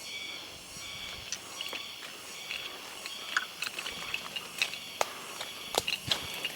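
Insects chirring in a high, rhythmic pulse, about one and a half pulses a second, with sharp crackles and snaps that come more often from about a second in.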